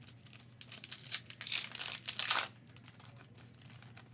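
A foil trading-card pack wrapper being torn open and crinkled, a run of crackling from about half a second in until about two and a half seconds in.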